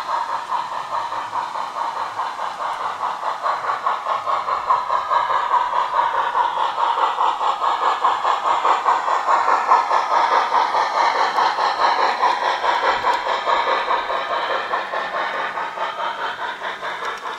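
Garden-railway model of the Harz narrow-gauge 2-10-2 tank engine 99 222 running past with a train of hopper wagons: a fast, even chuffing and its wheels rolling on the track. It is loudest about ten seconds in as it passes close by.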